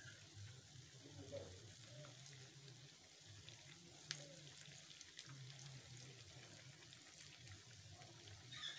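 Bofrot dough balls deep-frying in hot oil: a faint steady sizzle with small crackles, and one sharp click about four seconds in.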